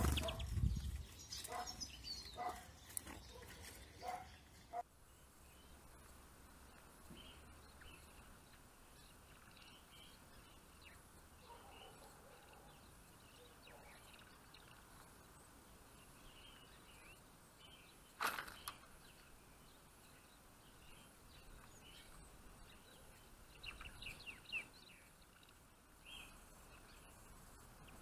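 Faint, scattered short calls of small finches, with a denser cluster of chirps near the end. Rustling and clicks in the first few seconds, and one sharp click about two-thirds of the way through.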